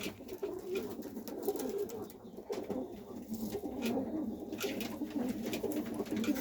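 Serbian Highflyer pigeons cooing in a low, continuous, wavering murmur, with a few light taps or scuffs now and then.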